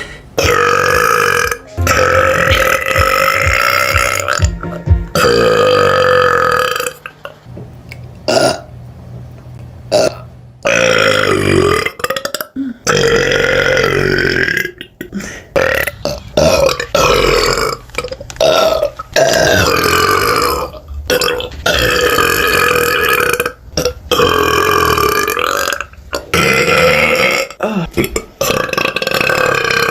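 A woman's long, deep burps, one after another, each held for a second to several seconds, with abrupt cuts between them and a quieter stretch from about seven to twelve seconds in.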